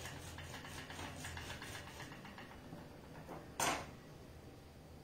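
Half a lemon being twisted on a plastic hand citrus juicer: a quick run of rubbing strokes, about four a second, that fades after about two seconds. A single sharp knock about three and a half seconds in.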